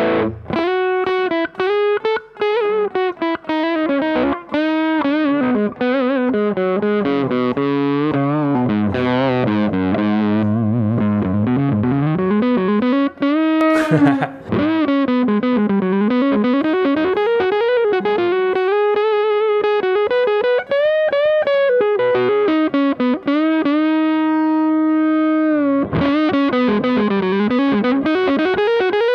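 Electric guitar played through a Fender Hot Rod Deluxe IV tube combo amp on its overdrive channel: single-note lead lines with bent notes and long held notes, plus a few chords near the start.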